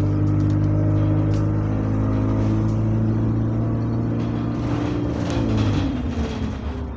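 Bus engine heard from inside the cabin, pulling steadily under load. Its note holds one pitch, then falls away about five to six seconds in as the bus eases off.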